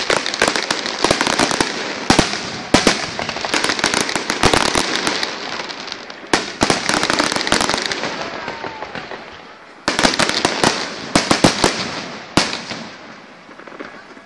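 Aerial fireworks display: a rapid barrage of sharp shell bursts over dense crackling, tapering off toward nine seconds in. A new volley of bangs starts at about ten seconds, then fades near the end.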